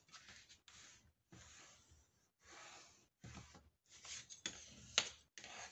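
Hands rubbing and pressing paper down onto a cardboard notebook cover in a series of short strokes, with one sharp click about five seconds in.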